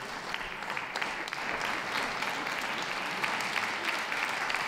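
Audience applauding, many hands clapping densely, building over the first second and then holding steady.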